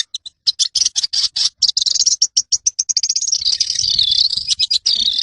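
Long-tailed shrike (cendet) in full song: fast bursts of sharp chattering notes that run together about two seconds in into a continuous, wavering warble.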